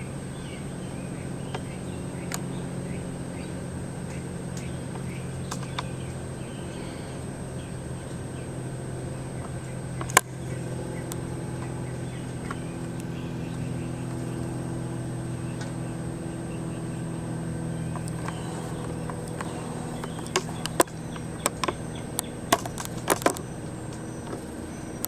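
A steady low hum of a motor running, with one sharp knock about ten seconds in and a quick run of sharp knocks near the end.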